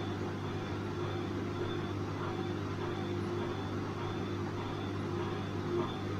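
Bosch washing machine running with a steady motor hum and a faint high note that comes and goes.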